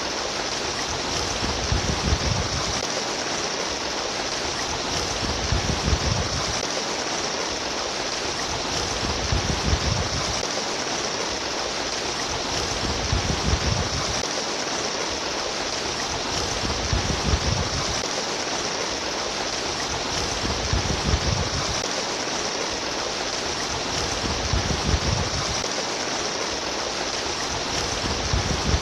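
Trickling, splashing water running steadily, with a low swell that comes back about every three to four seconds.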